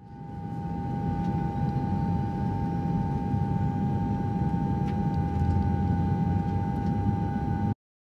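Jet airliner cabin noise while taxiing: a steady engine rumble and hiss with a constant high whine. It fades in over the first second and cuts off suddenly near the end.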